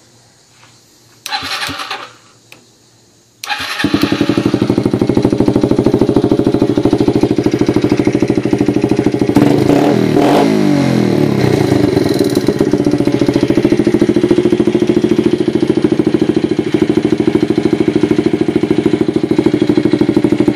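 Yamaha TTR90's small four-stroke single-cylinder engine, fitted with a CRF50 exhaust pipe, starts about three and a half seconds in after a short burst of sound. It then idles with an even putter. Near the middle it is revved once, its pitch rising and falling, and settles back to idle.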